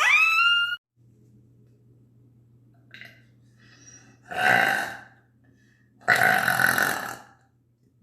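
A woman burping loudly on purpose, twice: a shorter burp about four and a half seconds in and a longer, drawn-out one about six seconds in, after a few small throaty sounds. A short rising vocal squeal right at the start.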